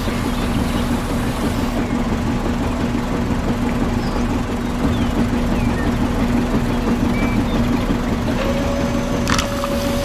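Toy construction vehicle's motor making a steady engine-like running drone. A higher steady tone joins about eight seconds in, and a few light clicks come near the end.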